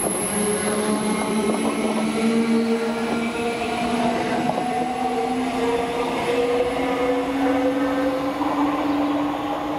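Greater Anglia Class 360 electric multiple unit accelerating away, its traction motors whining in several tones that rise slowly in pitch, over the rumble of wheels on the rails.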